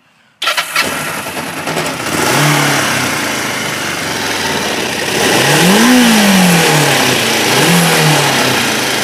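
Kawasaki Ninja 500 parallel-twin engine starting up about half a second in, then running with throttle blips that raise and drop its pitch, the biggest around the middle. The engine is running well after being fixed.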